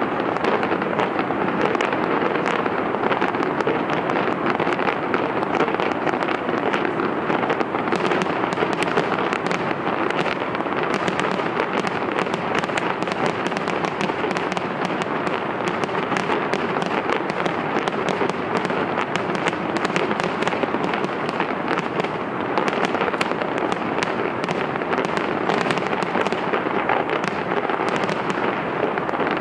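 Fireworks show fired from the Taipei 101 tower: a dense, unbroken barrage of bangs and crackling, with the crackles thickening from about eight seconds in.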